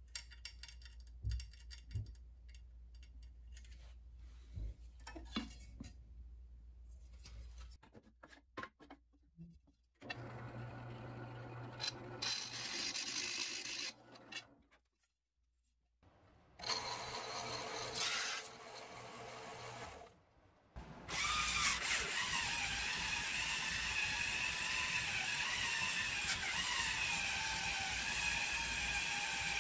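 A few scattered clicks and taps of hand work on the scooter frame. Then a drill press runs and cuts into an aluminium sheet in two short stretches. From about two-thirds of the way in, a cordless drill with a wheel attachment runs steadily against the aluminium skid plate, the loudest sound, its pitch wavering as the load changes.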